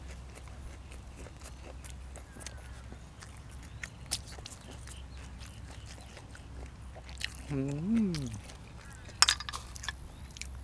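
Close-miked chewing and crunching while eating boiled apple snails with raw vegetables, with scattered wet mouth clicks. Near the end comes a short hummed "mm" that rises and falls, followed by a sharp crunch, the loudest sound. A steady low hum runs underneath.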